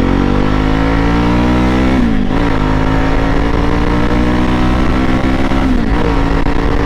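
Jawa motorcycle's single-cylinder engine pulling through the gears, its exhaust fitted with changed dB killers. The pitch climbs, drops at a gear change about two seconds in, rises slowly again, and drops at a second gear change near the end.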